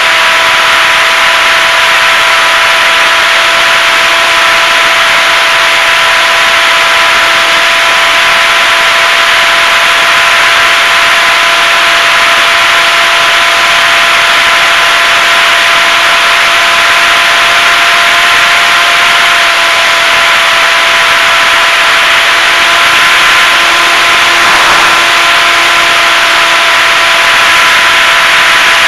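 Electric motor and propeller of a HobbyZone Super Cub RC plane in steady cruise, heard from an onboard camera: a constant whine of several tones over a strong rush of wind and propeller air. The pitch drifts only a little.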